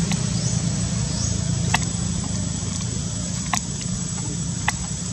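A steady low rumble, with a few sharp clicks, three of them plain, spaced a second or two apart.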